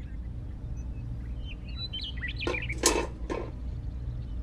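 Small tin pails knocking and clinking three times in quick succession just past the middle, over a steady low hum, with a few faint high chirps just before.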